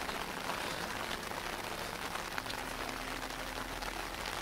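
Steady rain falling outdoors: an even hiss with faint scattered drop ticks.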